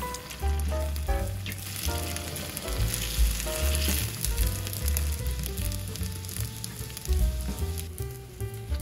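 Starch-coated pieces of sundae (Korean blood sausage) deep-frying in hot oil in a stainless pan, a steady sizzle of bubbling oil. Background music plays underneath.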